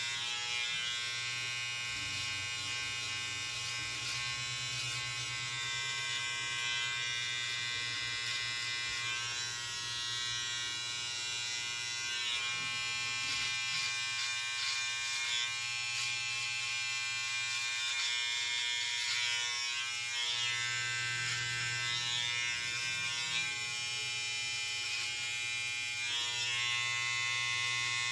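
Wahl Senior electric hair clipper buzzing steadily as it trims a beard, squaring off the line under the jaw. Its tone shifts a little now and then.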